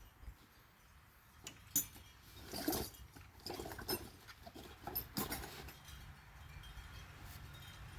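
Irregular clinks and knocks of metal tools and chainsaw parts being handled, with some rustling in between.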